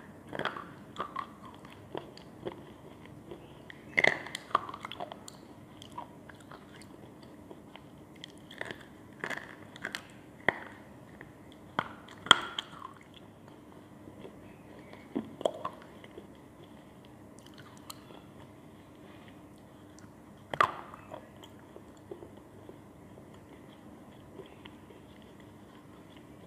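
Balak slate pencil sticks being bitten and chewed, with irregular sharp crunches and snaps between softer chewing. The crunches come a second or more apart, and the chewing fades off over the last few seconds.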